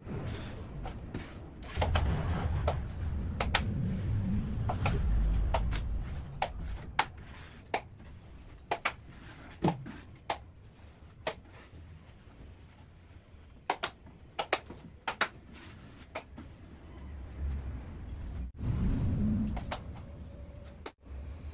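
Hand work on a drywall cabinet: scattered sharp taps and clicks, with stretches of low rumble.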